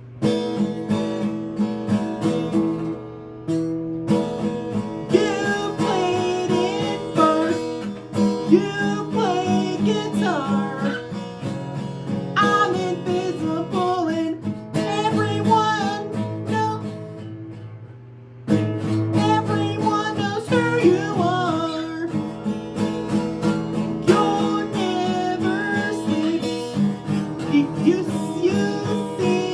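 Acoustic guitar strummed as accompaniment, with a voice singing a melody over it. The playing dips briefly a little past the middle, then picks up again.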